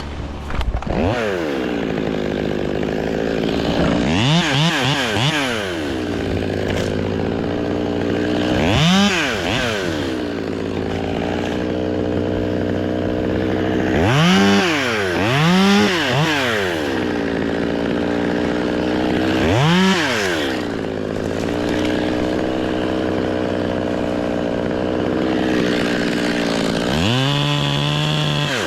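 Chainsaw idling and revved up and down in repeated bursts, about six times, with a longer high run near the end.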